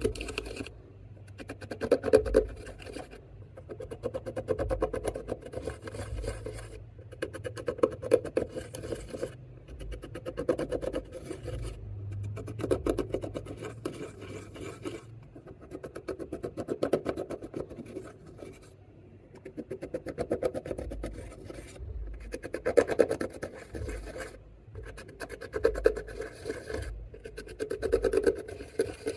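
Pressed eyeshadow and glitter being scraped and crumbled out of the pans of a makeup palette with a tool: a crackly, gritty scratching in strokes of one to three seconds, with short pauses between them.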